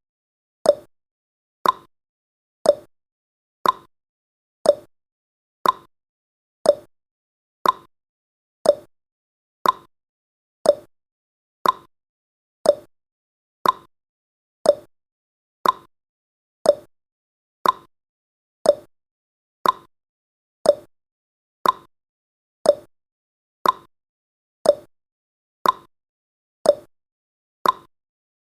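Countdown timer's clock-tick sound effect, one sharp tick every second, steady and unchanging.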